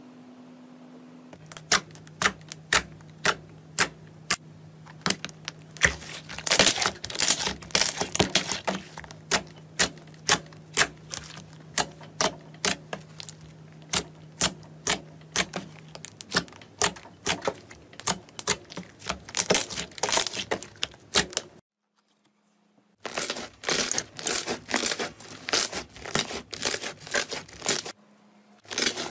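Soft slime being pressed and kneaded by hand, giving irregular runs of sharp, wet clicks and pops that come thick and fast at times. The sound stops briefly about two-thirds of the way through, then starts again.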